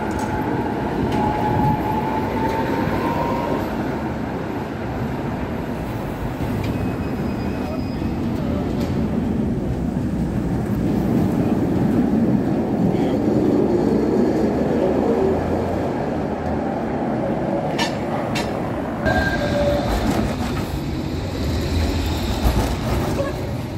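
Metre-gauge street trams passing close by: a steady rumble and rattle of steel wheels on rail, loudest in the middle, with a brief high whine near the start.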